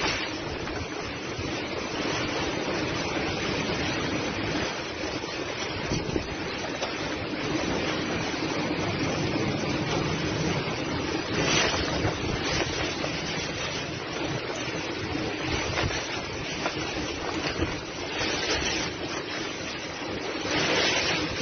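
Typhoon-force wind and driving rain: a steady rush of storm noise that swells and eases in gusts, with the wind buffeting the microphone. One of the strongest gusts comes near the end.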